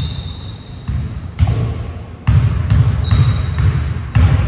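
Basketballs bouncing on a hardwood gym floor: several irregular, sharp bounces that echo through the large hall, with a couple of short high squeaks.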